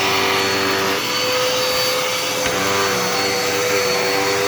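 Dirt Devil Endura Reach upright vacuum cleaner running with a steady motor whine. Its pitch steps up slightly about a second in.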